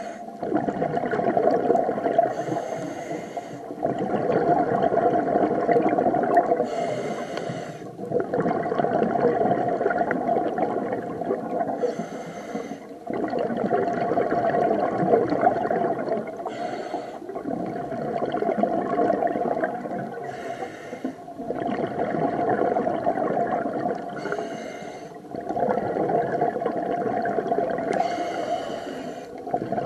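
Scuba diver breathing underwater through a regulator. Each short hissing inhale is followed by a longer exhale of bubbles rushing past the microphone, about one breath every four seconds.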